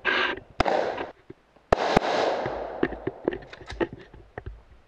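Pistol shots from an Open-division competition pistol. One loud shot at the very start is followed by another about half a second later and a quick pair just under two seconds in, then a run of fainter cracks and pops.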